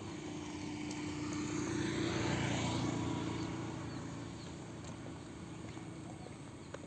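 A motor vehicle passing by on a road, its engine sound swelling to a peak about two and a half seconds in and then fading away.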